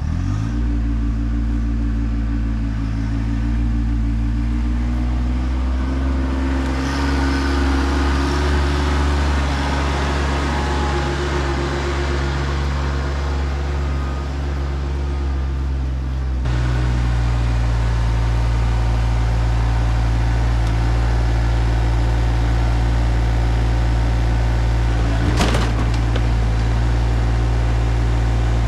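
RK24 compact tractor engine starting up and running steadily. About sixteen seconds in its sound changes, losing its higher rush and settling into a steadier, heavier run. A single sharp knock comes near the end.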